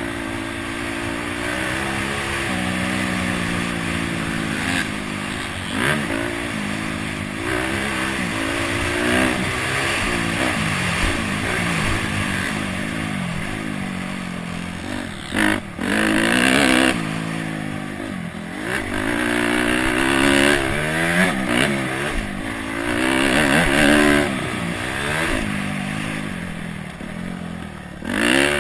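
Honda CRF250X's single-cylinder four-stroke engine being ridden hard, its pitch rising and falling every second or two as the throttle is opened and closed and the gears change, with a brief drop about fifteen seconds in.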